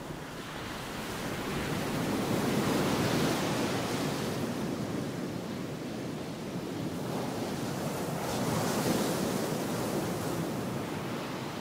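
Ocean waves surging and receding, swelling to a peak about three seconds in and again near nine seconds.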